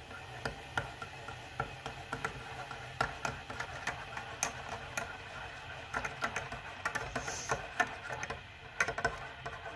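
Metal teaspoon clinking against the inside of a ceramic mug while stirring coffee: a run of light, irregular clinks.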